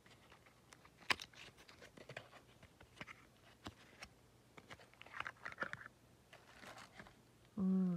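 A small paperboard nail-polish carton handled and opened by hand: scattered clicks and taps with brief rustles of cardboard as the flap is opened and the bottle slid out. A short voiced 'ooh' comes near the end.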